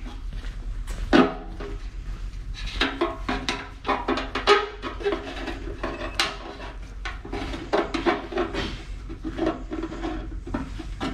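Background music with light metallic clinks and taps as hand tools and small hardware knock against an aluminium fuel tank during removal of its pump retainer ring.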